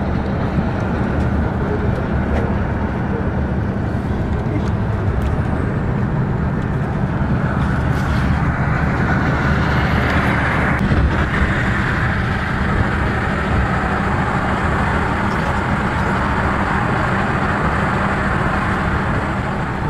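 Steady engine drone and road rush heard from inside a moving coach bus, the rush swelling for a few seconds around the middle.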